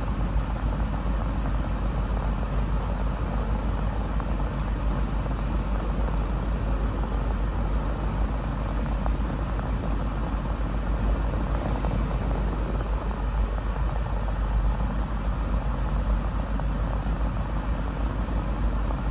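Steady rush of a 2000 Land Rover Discovery's heater blower pushing air out of the dash vents, over the low rumble of the engine idling.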